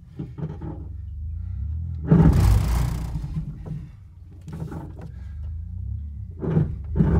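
Low, steady engine rumble of the towing Jeep, heard from inside the cab of the towed, dead Ford Explorer. Two loud rushes of noise come about two seconds in and again near the end.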